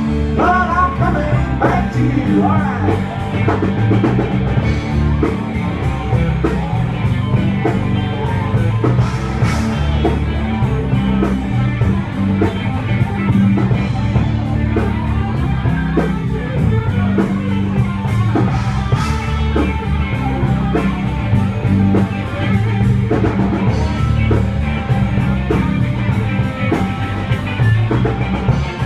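Rock band playing live, with electric guitar, bass and drum kit.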